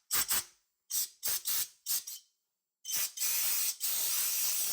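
Capri Tools CP21350 Windstorm EX compressed-air blow gun fired in about seven quick hissing blasts, then one long blast of nearly two seconds, blowing debris away.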